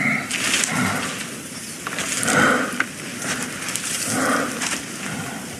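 Film soundtrack of forest ambience without dialogue: wind and other natural sounds, with a few louder swells near the start, about two and a half seconds in and about four seconds in.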